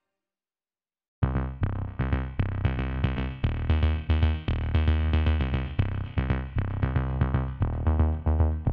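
Silence for about a second, then electronic background music starts with a steady drum-machine beat and synthesizer notes.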